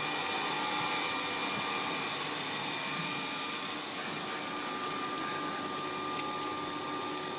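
Oertzen E1000 ultra-high-pressure cleaner running steadily: an even, constant noise with faint steady whining tones, one of them growing clearer about halfway through.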